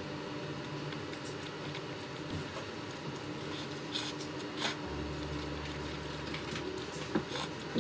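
A few small clicks and taps over soft held tones, with a low hum coming in about five seconds in.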